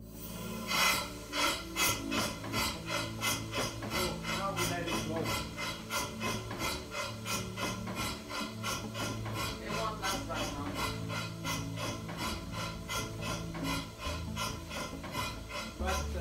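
Homemade paddle-wheeler steam engine running on compressed air instead of steam: a fast, even chuff of air exhausting from the cylinder, several beats a second, as it turns the paddle wheels.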